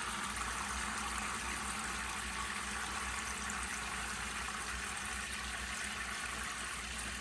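A shower running with a steady spray of hot water fed from the tank of a diesel-fired combination water heater.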